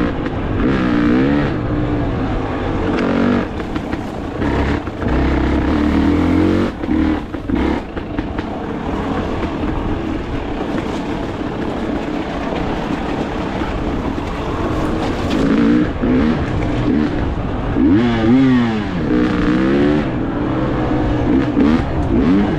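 Dirt bike engine running under load on a trail, its revs rising and falling repeatedly as the throttle is worked, with sharp climbs in pitch near the end.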